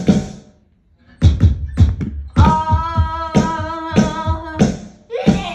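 Music with a beat: the track drops out briefly just after the start, then comes back with heavy, bass-heavy drum hits and a long held note over them, with a short break near the end.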